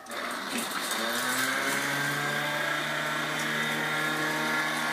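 Electric motor of a homemade dog ball launcher switching on, its whine rising in pitch as it spins up over about a second and a half, then running steadily.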